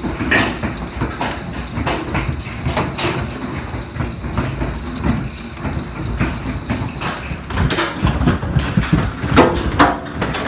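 Golf-ball-sized hail pounding down in a dense, continuous clatter of impacts, with heavier single strikes standing out, most of them from about eight seconds in.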